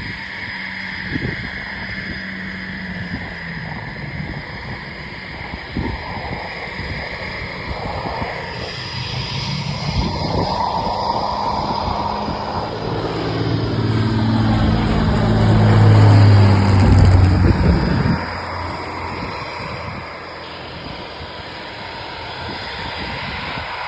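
Spitfire's piston engine on landing approach, running rough with irregular coughs and splutters. It grows louder as the plane passes close, falling in pitch, then drops away abruptly about eighteen seconds in.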